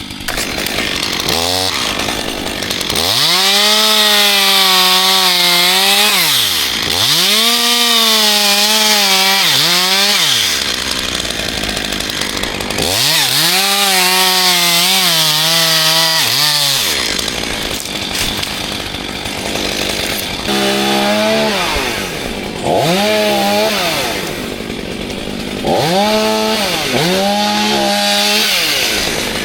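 Two-stroke chainsaw revving up to full throttle and held there for a few seconds at a time, its pitch wavering a little while held, then dropping back to idle. There are three long runs, followed by several shorter revs near the end.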